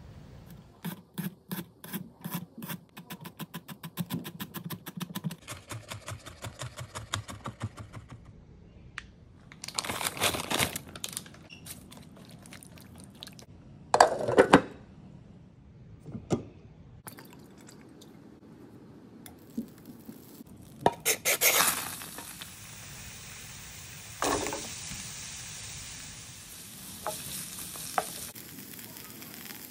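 Kitchen cooking sounds: a quick run of knocks that speeds up, then clunks and clatter of a pot, its glass lid and utensils. About two-thirds of the way through, a steady sizzle starts as edamame pods fry in a non-stick pan and are stirred with a metal spatula.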